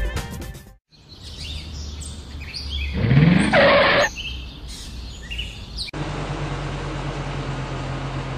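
Birds chirping, with a car going by about three seconds in, its engine pitch rising. From about six seconds a car engine hums steadily at idle.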